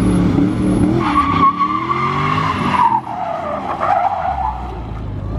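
Chevrolet Camaro being driven hard: the engine revs climb while the tyres squeal loudly on the asphalt, and a second, lower-pitched squeal follows about a second later.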